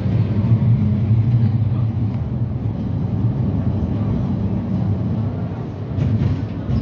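Cabin running noise of a Pesa 2014N Krakowiak low-floor tram in motion: a steady low rumble, with a few faint clicks about six seconds in.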